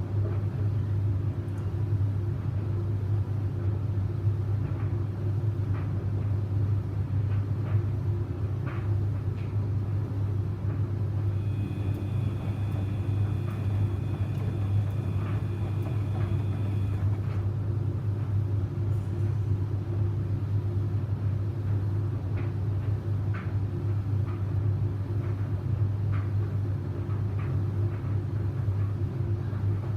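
Samsung washing machine running a wash: a steady low motor hum with faint irregular knocks from the tumbling drum. A faint high whine is heard for several seconds near the middle.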